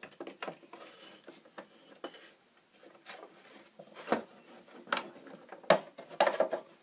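Small toy figures and wooden dollhouse furniture being moved about on wooden shelves: scattered light knocks, taps and rubs, with a few sharper knocks in the second half.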